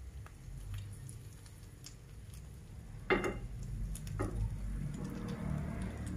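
Metal fork tapping and scraping in a frying pan of peanuts and egg, with light frying sizzle; a sharp knock of the fork on the pan about three seconds in, the loudest sound, and a smaller one about a second later.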